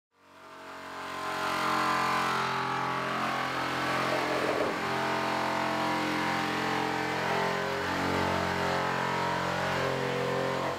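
A steady engine-like drone that fades in from silence over the first couple of seconds and then holds at an even pitch.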